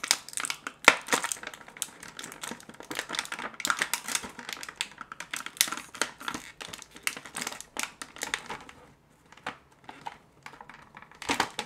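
Clear plastic blister packaging crackling and clicking as hands pull an action figure free of it: a dense run of sharp crackles that thins out to a few clicks near the end.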